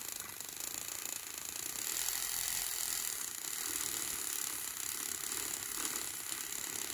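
Battery-operated handheld milk frother running steadily, its small motor whirring as the wire whisk spins in heated almond milk.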